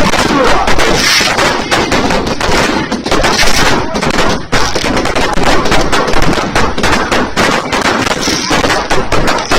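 Fireworks and firecrackers going off in a dense, rapid, continuous string of sharp bangs and cracks, like machine-gun fire.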